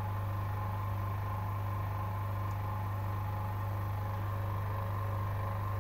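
Vacuum pump inside a Forward iOS screen laminating machine running with a steady low hum, drawing the laminating chamber down to vacuum.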